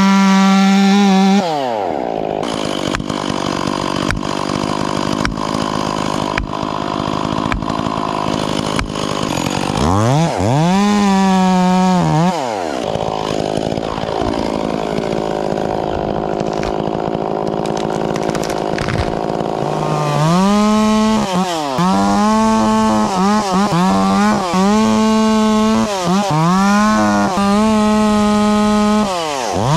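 Stihl 044 two-stroke chainsaw at full throttle, dropping to idle about a second in and revving up briefly around ten seconds in. From about twenty seconds in it cuts, its engine speed dipping and recovering again and again under load. While it idles, sharp knocks come about every two-thirds of a second.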